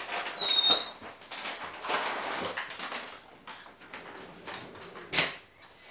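Green 260 latex modelling balloon being inflated only a little with a hand balloon pump: airy whooshes of the pump strokes, with a short high squeak about half a second in.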